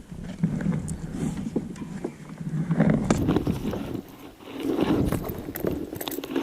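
Kayak paddling: a couple of paddle strokes swishing through the water, with scattered knocks against the hull.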